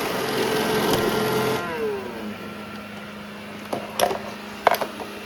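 Robot vacuum running, its motor noise cutting off about one and a half seconds in and winding down with a falling whine. A steady low hum carries on, with a few sharp clicks and knocks near the end.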